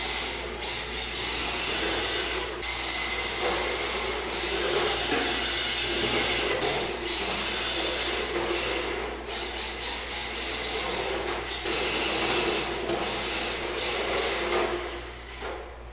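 MST RMX 2.0 electric RC drift car running on a concrete floor: a thin motor whine that comes and goes with the throttle, and the tyres scrubbing as the car slides, surging every second or two.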